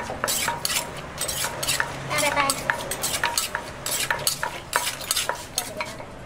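Wooden pestle pounding in an earthenware som tam mortar, about three knocks a second, each with a short ring. The pounding stops just before the end.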